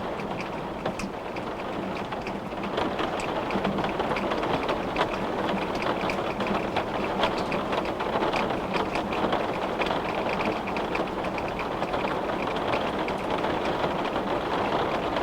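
Steady rain on a glass windowpane: an even hiss with many small, sharp ticks of drops striking the glass.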